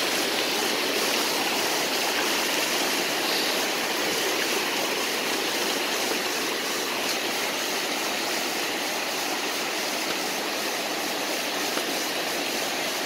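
Rain-swollen creek rushing over bedrock in a steady, unbroken roar of running water, the stream running high after rain.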